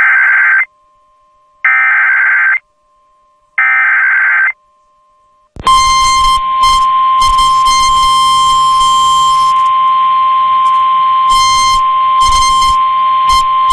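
Emergency Alert System broadcast: three short, screechy bursts of digital data tones (the SAME header) about two seconds apart, then a single steady high alert tone, the weather-radio warning alarm, with radio static behind it. It marks the start of a flash flood warning.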